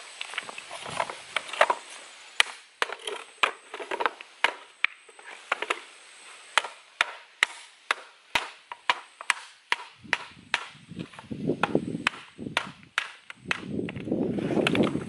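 Loose stones clacking as they are handled and moved by hand on rocky ground: a long run of sharp knocks, two or three a second. Rougher scraping near the middle and again near the end.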